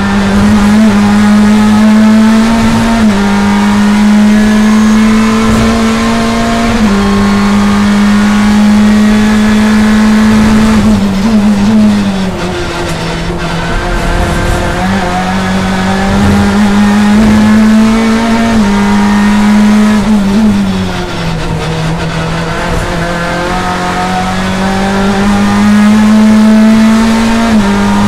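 Chevrolet BTCC touring car's engine heard from inside the cockpit at race speed, running hard high in the rev range. Its pitch climbs slowly and steps at the gear changes, and it drops twice with a dip in loudness as the car slows for corners, about halfway through and again about three-quarters through.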